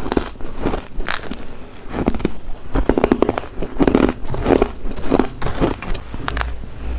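Close-miked dry, squeaky crunches of powdery freezer ice being bitten and chewed, in quick repeated clusters.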